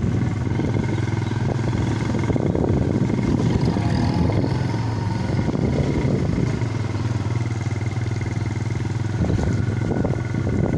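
Motorcycle engine running steadily while riding along, with a continuous low hum.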